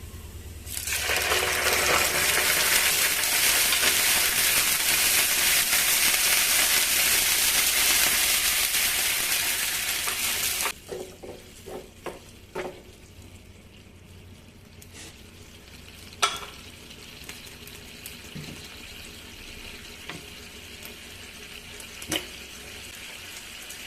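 Food sizzling in a hot pan: a loud, steady sizzle for about ten seconds that cuts off suddenly. Then quieter kitchen clicks and knocks.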